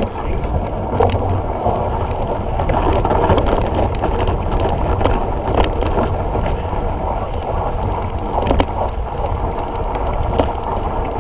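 Surly Long Haul Trucker touring bicycle riding through snow: a steady rumble of tyres and wind on the microphone, with scattered clicks and knocks from the bike rattling.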